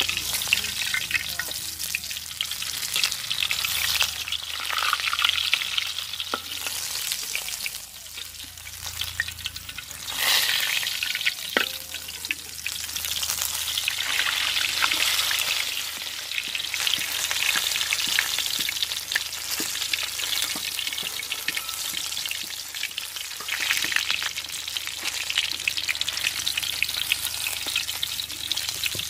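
Whole fish shallow-frying in hot oil in a large metal wok, a steady sizzle full of small crackles and pops, with a metal spatula scraping and tapping against the pan as the fish are worked.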